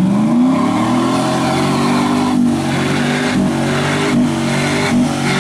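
Lifted Chevrolet Silverado Z71 pickup's engine revving hard as the truck drives through a mud pond, its pitch rising and falling repeatedly with the throttle, with the wheels churning and spraying mud and water.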